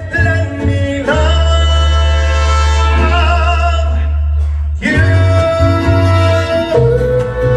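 Mariachi band playing, with long held chords over a steady bass; the sound breaks off briefly about four and a half seconds in, then a new held chord follows.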